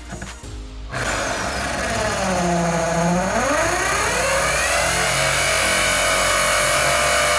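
Power drill spinning a Neiko diamond grit hole saw bit into wet ceramic tile: the motor starts about a second in, slows and drops in pitch, then picks back up to a steady whine.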